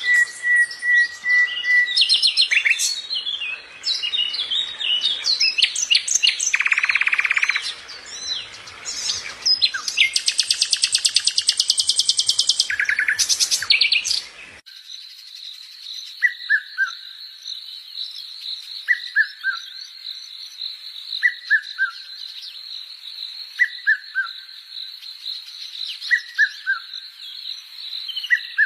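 Birds chirping and calling, a dense mix of varied chirps, squawks and fast rattling calls. About halfway through it changes abruptly to a steady high shrill background with a short falling three-note call repeated every two and a half seconds or so.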